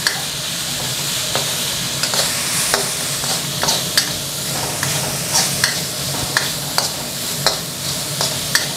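Minced pork and holy basil sizzling in a hot wok while a metal spatula stir-fries them, scraping and clinking against the pan at irregular intervals, roughly once or twice a second.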